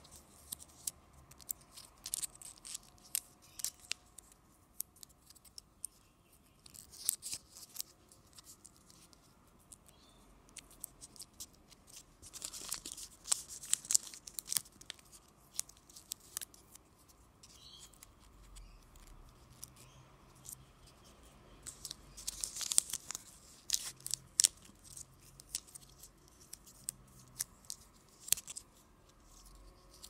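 Small plastic wrapping being crinkled and torn by hand, among many light clicks and taps of handling. Two louder crinkling stretches come about halfway through and again about two-thirds of the way in.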